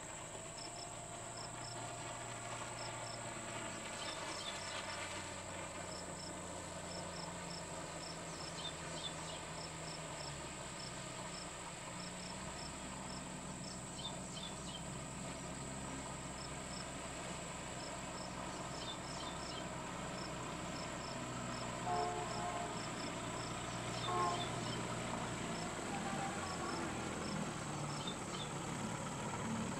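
Crickets chirping in a steady, evenly repeating rhythm over a constant low hum, with a couple of brief higher calls a little past the middle.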